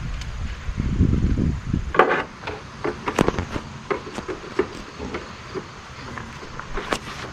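Handling noises from hands-on work: scattered, irregular light knocks and clunks, with a brief low rumble about a second in.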